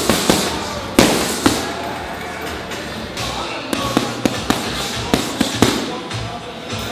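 Boxing gloves smacking into focus mitts: sharp slaps, two about a second in, then a run of quick combinations of two or three hits a second from about halfway on.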